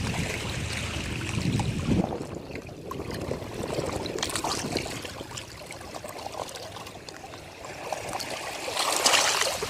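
Ocean waves washing up the beach, water trickling and hissing as it runs back, with a louder wave surge about nine seconds in.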